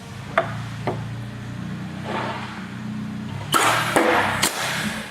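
Steel rule dies being handled on a clicker die-cutting press: two light clicks, then scraping and a few sharp knocks about three and a half to four and a half seconds in, over a steady low hum.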